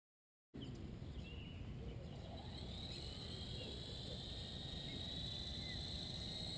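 Wind buffeting the microphone, with a steady high-pitched whine that rises slightly about three seconds in and slowly grows louder, and a few short bird-like chirps.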